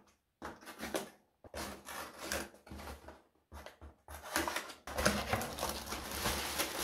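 Cardboard shipping box being torn open by hand: irregular rubbing, scraping and tearing of cardboard. It grows busier and louder from about four seconds in as the lid is pulled open.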